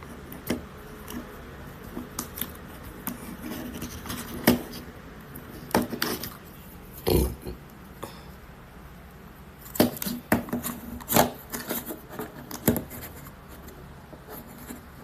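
Small hard objects being handled on a tabletop: scattered clicks, taps and knocks with some rubbing between them, over a low steady background.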